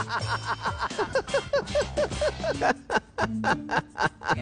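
Cackling laughter: a fast run of short 'ha-ha' pulses, about four or five a second, that spaces out into fewer, separate bursts in the second half, over light background music.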